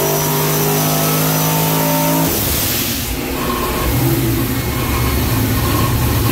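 Car engine sound effect over a logo sting: a steady held engine note that breaks off about two seconds in with a short rushing whoosh, followed by a low, uneven engine rumble.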